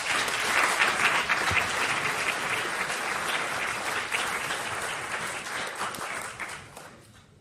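Audience applauding at the end of a lecture: many hands clapping at once, steady and loud, then dying away near the end.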